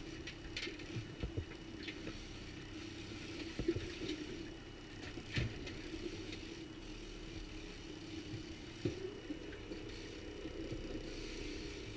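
Boat's outboard motor running steadily at low speed, with water washing against the aluminium hull and a few sharp knocks on the boat.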